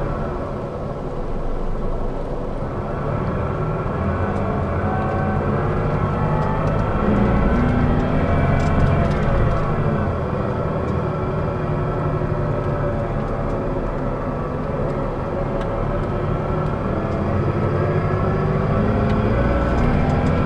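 Scania DSC12 12-litre turbocharged six-cylinder diesel, rear-mounted, heard from inside the coach while it drives. The engine note rises and falls several times as the revs change.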